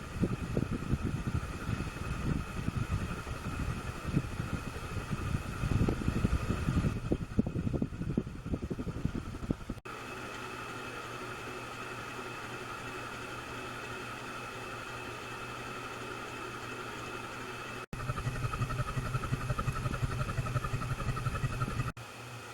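1989 SMC Laguna 90 cm ceiling fan running at medium speed, at roughly 135 to 140 RPM, with a steady high tone over it. Irregular low rumbling fills the first ten seconds and returns for a few seconds near the end, and the sound changes abruptly three times.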